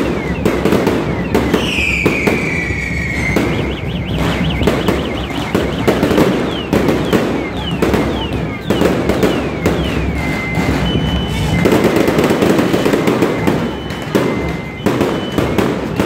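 Strings of firecrackers crackling in a continuous rapid barrage. Short high whistles fall in pitch over and over, and there is one longer falling whistle about two seconds in.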